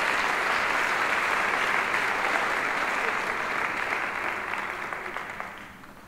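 Audience applauding, the applause dying away over the last second or two.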